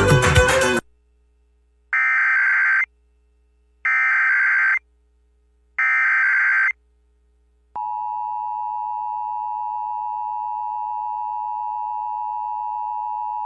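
Emergency Alert System weekly test signal: music cuts off just under a second in, then three short SAME header data bursts about a second apart. About 8 seconds in, the steady single-pitch weather radio warning alarm tone begins.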